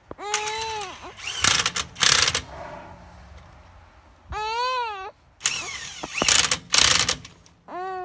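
Electric impact wrench run in several short trigger pulls on wheel lug nuts: the motor whine rises and falls each time, and on some pulls the hammer rattles hard as the nuts snug down.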